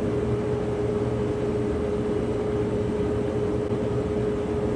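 Combine harvester running steadily, a low drone with an unbroken whine held at one pitch over it, heard from inside the cab.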